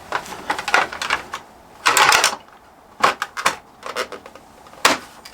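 Plastic rear fairing panel of a Honda CB650R being pushed and knocked against the bike's tail to seat it: a run of clicks and short scrapes, with a longer rattle about two seconds in. The panel is not yet seated correctly.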